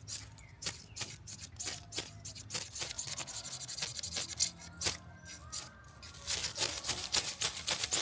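Machete blade scraped repeatedly down a small ferrocerium rod to throw sparks: a string of short rasping strokes that become faster and louder near the end.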